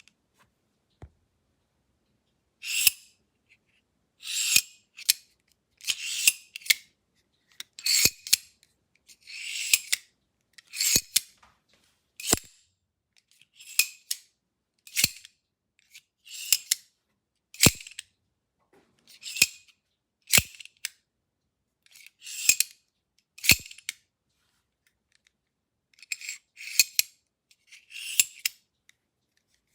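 Reate EXO gravity knife worked over and over, its blade sliding out and back in the handle. Each time there is a short metallic swish that ends in a sharp click as the blade locks.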